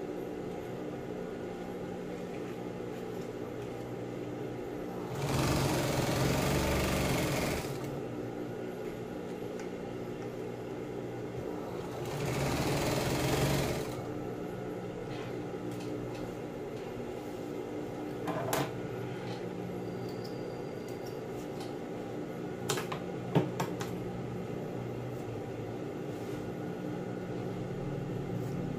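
Industrial sewing machine humming steadily, with two bursts of stitching: one about 5 seconds in lasting about two and a half seconds, and a shorter one about 12 seconds in, as the vinyl sheet is sewn. A few sharp clicks in the second half.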